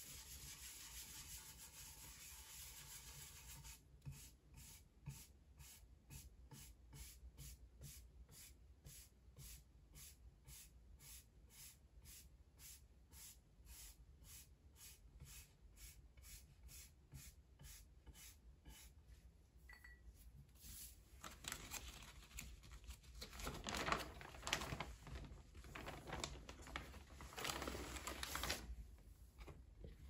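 A small brush scrubbing ink across a carved wooden printing block, in faint, quick, even strokes about two or three a second. Near the end it turns to louder, rougher scrubbing passes.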